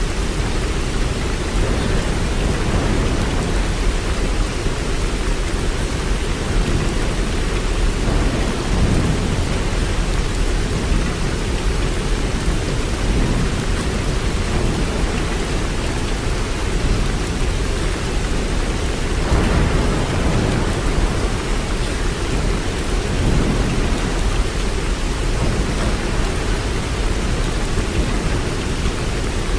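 Waterfall: a steady, deep rush of falling water, with most of its weight in the low end and small swells now and then.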